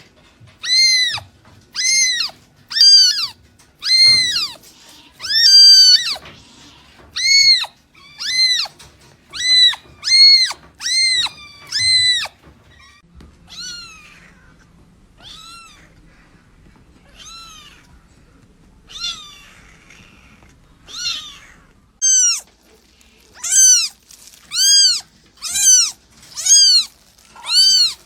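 Kitten meowing over and over in short, high-pitched calls that rise and fall, about one a second. The calls grow fainter for several seconds in the middle, then come loud again near the end.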